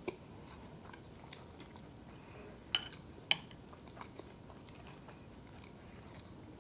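Metal spoon stirring and scooping soggy cereal in a glass bowl, with a few sharp clinks of spoon on glass, two of them close together near the middle.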